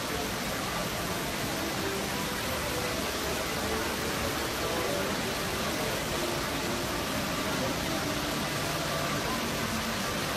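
Steady rushing hiss of a busy shopping mall's ambience, with faint distant crowd voices underneath.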